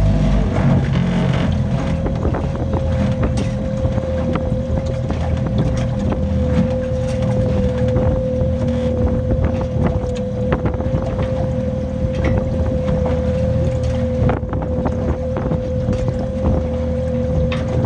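Strong wind buffeting the microphone, a heavy gusting rumble, over a steady mid-pitched hum and frequent small knocks.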